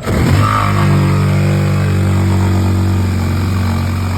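Power tool motor running at a steady speed, cutting the hole through the wall for a pellet stove's wall thimble.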